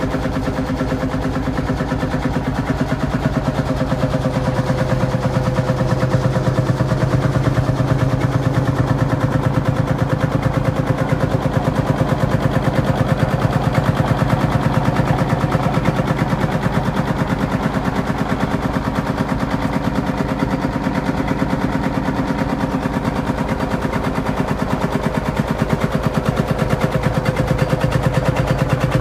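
1948 Field Marshall Series 2 tractor's single-cylinder two-stroke diesel engine, freshly rebuilt, running steadily with a rapid, even stream of exhaust pops.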